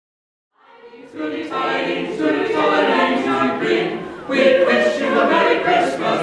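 A choir singing a Christmas carol in several voices, fading in out of silence within the first second.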